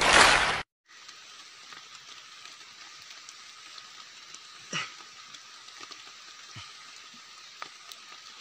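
A loud, noisy half-second burst from an inserted audience clip cuts off abruptly. After it comes a steady outdoor hiss, with soft rustles and small ticks of hands working leaf litter and soil while mushrooms are picked, and a single louder knock about five seconds in.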